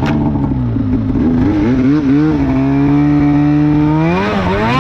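Arctic Cat M8000 snowmobile's C-TEC2 800 two-stroke twin with an NPP exhaust, running under throttle on the trail. The engine note wavers for the first two seconds, holds steady, then climbs sharply about four seconds in and drops back near the end.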